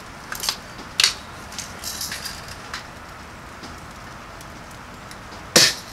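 Daisy Red Ryder spring-powered BB gun firing one shot, a sharp report about five and a half seconds in, after a couple of small clicks from handling the gun.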